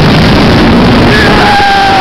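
Steady, loud rush of wind and track noise on a moving Riddler's Revenge stand-up roller coaster train, heard from a rider's camera. About a second in, a rider gives one long held yell.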